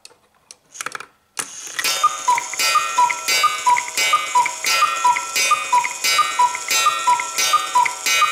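Cuckoo clock cuckooing: the repeated two-note call, high then low, starting about a second and a half in and going on steadily. The bird comes out through the open door and calls again and again: the clock, broken before, now works after its bird was pushed down into place.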